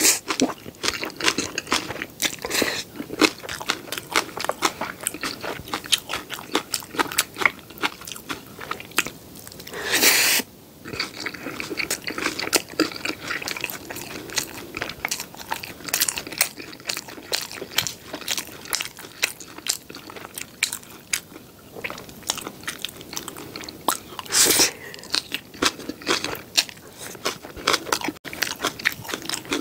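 Close-miked mouth chewing a mouthful of black bean noodles and green onion kimchi: a dense run of wet, crunchy clicks. Twice a short, louder rush of noise breaks in, about a third of the way in and again near the end.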